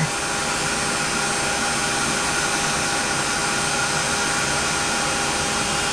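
Ranger embossing heat tool running steadily, a continuous blowing whir with a faint steady hum, as its hot air melts embossing powder.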